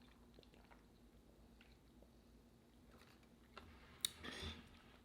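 Faint chewing of food close to the microphone, with a few louder wet mouth clicks about three and a half to four and a half seconds in.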